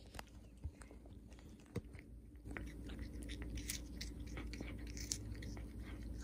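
Domestic cat biting and chewing at something on the floor close to the microphone: scattered small crunchy clicks that grow busier and louder about two and a half seconds in.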